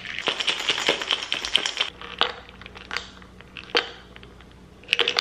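Espresso with brown sugar being shaken hard in a glass mason jar with a screw-on metal lid, rattling rapidly for about two seconds. After that come a few separate clinks as the jar is opened and poured into a drinking glass.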